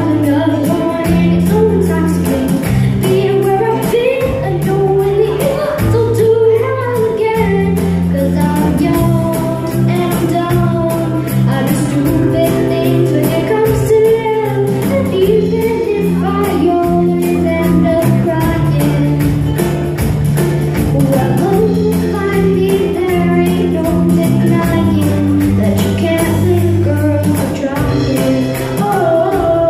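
A woman singing a song over accompaniment with a stepping bass line and steady percussion.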